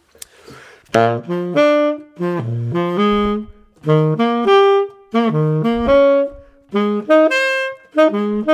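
Solo tenor saxophone playing a run of short jazz phrases of quick single notes, with brief pauses between phrases. The first note comes about a second in.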